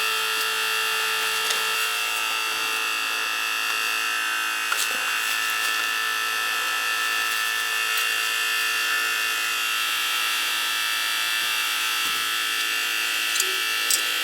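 Hot-water boiler circulator pump running with a steady high-pitched squealing whine and buzz, with a few faint clicks. The squeal comes from a faulty circulator that the plumber traces the noise to and decides to replace.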